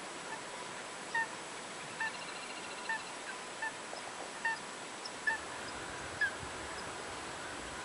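A flock of waterbirds calling, short upward-hooking calls about one a second over a steady hiss. About two seconds in, another bird gives a brief rapid trill.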